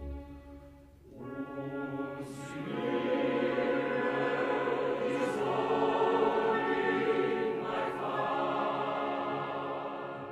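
Choir singing long sustained chords that swell to a full sound in the middle and fade away near the end.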